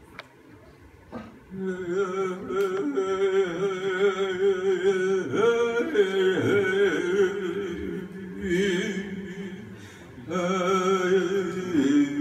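Live music: a voice sings long, wavering held notes over a steady low drone. It starts about a second and a half in, fades briefly near ten seconds, and comes back.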